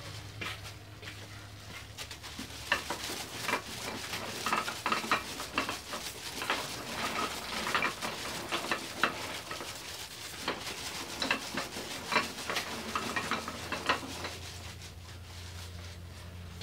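Irregular crinkling and rustling of plastic being handled, busiest in the middle and dying away near the end, over a low steady hum.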